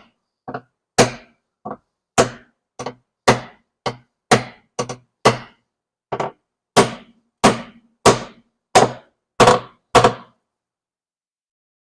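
A hammer striking the thick steel floor pan around a car's jacking point, about eighteen heavy blows at roughly two a second, then stopping. It is panel beating, knocking the pushed-up, dented metal back down flat.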